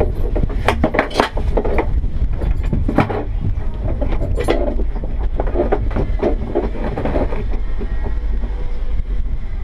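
Wind rumbling on the microphone in the open cockpit of an MDM-1 Fox glider, with several sharp clicks and knocks from the seat harness buckles and cockpit sides as the front-seat occupant unbuckles and climbs out.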